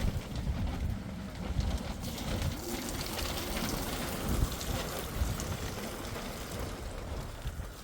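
Storm wind buffeting the microphone in irregular gusts, over a steady rushing hiss.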